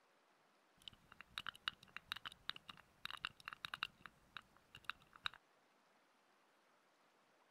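Close-miked ASMR scratching and crackling, a quick irregular run of crisp clicks as of fingertips rubbing right at the microphone, stopping short about five seconds in.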